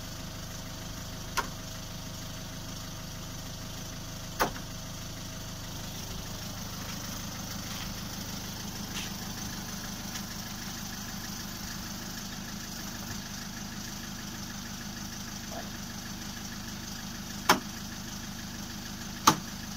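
Peugeot 206cc idling while its electro-hydraulic folding roof runs, a higher steady whine joining the engine about a third of the way in. Four sharp clunks from the roof and boot-lid mechanism, two early on and two near the end.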